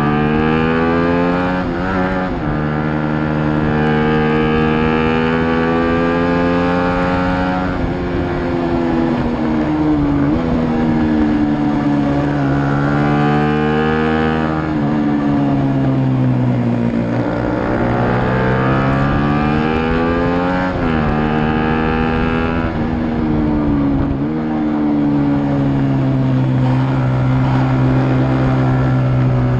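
Small bucket-class racing motorcycle engine heard from onboard, pulling hard on track. Its pitch climbs and then drops back several times as the rider changes gear and slows for corners.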